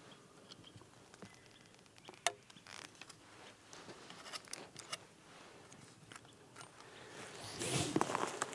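Quiet clicks and scrapes of a compound bow and arrow being handled, with one sharp click about two seconds in. A louder rustle of clothing and movement comes near the end.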